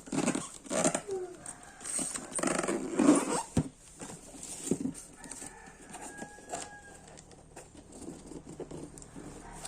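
A cardboard box and its plastic packaging being opened and handled: irregular rustling, scraping and light knocks, busiest in the first few seconds and quieter toward the end.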